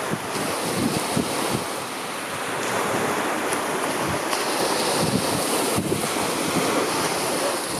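Sea water washing and lapping against shoreline rocks, a steady rush of surf, with wind gusting on the microphone in irregular low rumbles.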